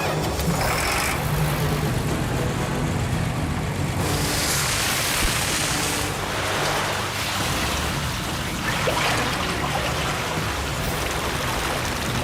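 Engine-driven water pump running steadily while water gushes through a trommel wash plant and sluice, the rushing swelling about four seconds in.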